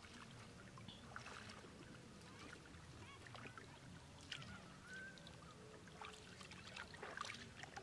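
Bare feet wading through ankle-deep running floodwater: faint, irregular splashes about once a second over a low, steady rush of flowing water.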